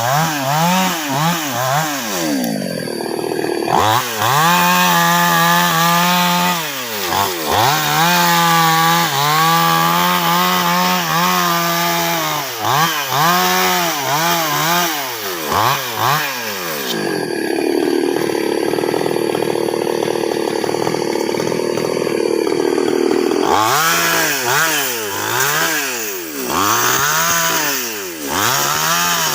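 Chainsaw cutting sengon (albizia) wood, its two-stroke engine revving up and down again and again. About two-thirds through, it is held steady under load for several seconds.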